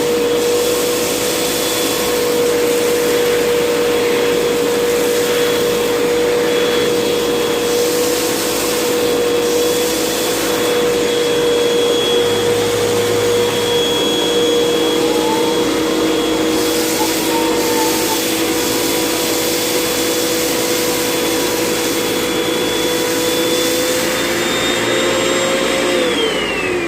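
Vacuum cleaner running with a steady motor whine; near the end the whine falls in pitch as the motor winds down.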